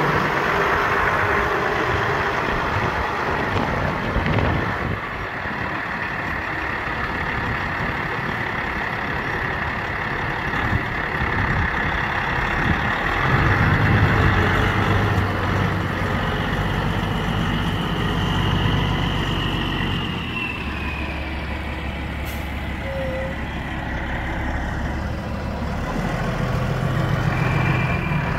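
2000 Peterbilt 379 day cab truck tractor's diesel engine idling steadily.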